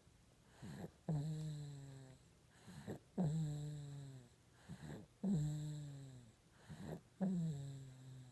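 Rhythmic snoring, four breaths about two seconds apart: each a short rough snort, then a loud drawn-out pitched tone that slides down in pitch and fades over about a second.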